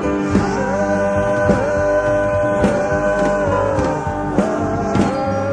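Psychedelic rock music: a lead line of long held notes, each sliding up into pitch, over guitar and a steady bass.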